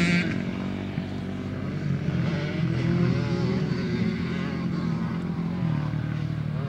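Dirt bike engines revving and running, their pitch rising and falling as the riders work the throttle around the track.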